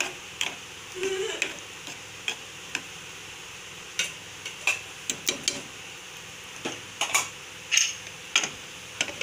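A spoon stirring thick green gram curry in an aluminium pressure cooker, knocking and scraping against the pot in irregular clicks.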